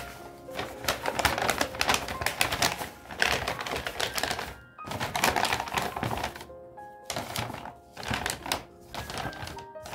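A stiff paper shopping bag being folded and creased by hand, crackling and rustling in quick irregular bursts, over background music.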